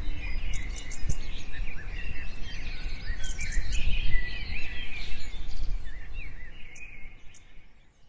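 Small songbirds chirping and twittering in quick, varied phrases over a low background rumble, fading out near the end.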